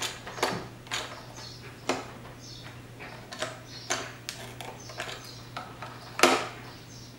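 Hand pop-rivet gun being squeezed stroke by stroke to set blind rivets: a series of separate sharp clicks, irregularly spaced, with the loudest, longest snap about six seconds in.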